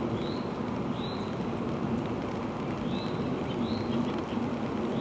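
Steady low rushing background noise, with a small bird giving short upswept chirps, singly or in pairs, a few times.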